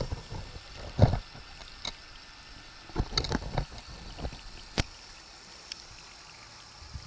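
Water splashing and sloshing, with irregular sharp knocks: a cluster about a second in, several around three seconds in and a single one near five seconds. A faint steady high-pitched hum runs underneath.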